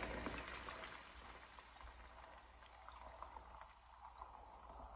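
Faint sizzling and bubbling of raw chicken kofta meatballs deep-frying in hot oil, with small crackles, dying down over the first couple of seconds. A brief small sound comes near the end.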